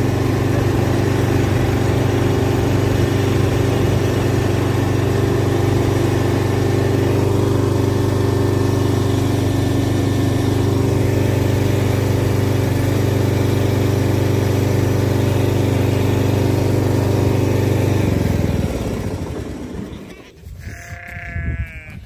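Tractor engine running steadily, then shut off about eighteen seconds in, its note dying away. A single bleat follows near the end.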